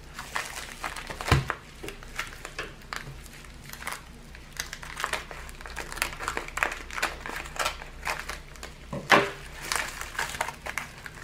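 Plastic bubble-mailer packaging crinkling and crackling as it is handled and cut open with scissors. The crackles come irregularly, with two sharper snaps, one about a second in and one near the end.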